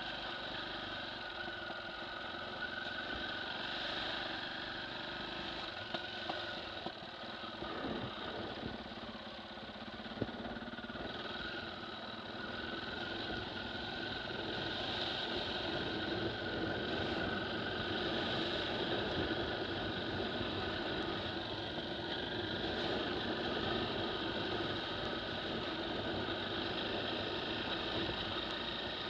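KTM 450 EXC's single-cylinder four-stroke engine running steadily while the bike is ridden along a muddy track. There are a few sharp knocks about a quarter to a third of the way in, and the sound grows a little louder about halfway through.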